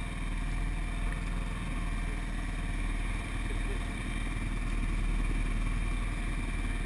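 ATV engine running hard at fairly steady revs as its wheels spin through a mud hole.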